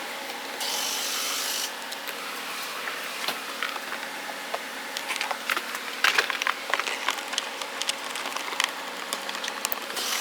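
Clicks, scrapes and rubbing of plastic door-trim parts being handled and fitted back together, busier in the second half, over a steady low hum. A brief hiss comes about half a second in.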